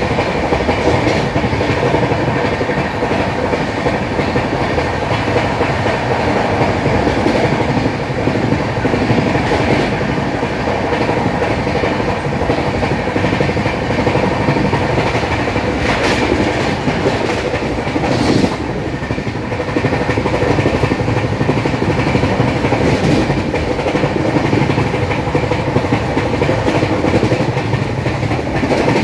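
Track sound of an LHB passenger coach running at speed, heard at the open coach door: a steady, dense rush of wheels on rails. A sharp knock comes a little past halfway, with a brief drop in level soon after.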